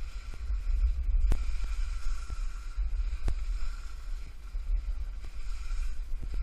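Wind rumbling on the camera microphone during a fast ski run down a snow slope, with a few sharp knocks, the loudest about a second in and again about three seconds in.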